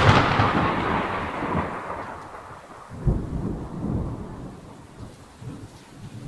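Explosion sound effect: a loud blast dying away into a long rolling rumble, with a few fainter low rumbles following about three seconds in.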